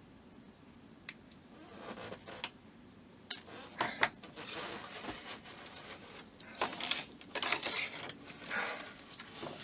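Hands handling small parts of a model helicopter rotor: a string of sharp little clicks as pieces knock together, with rustling in between.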